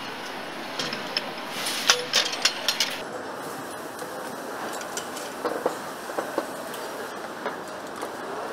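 Steady factory-floor noise with light metallic clinks and knocks as aluminium engine parts, a Porsche flat-six cylinder head and camshafts, are handled and fitted: a cluster of sharp clinks between one and three seconds in, and a few more later.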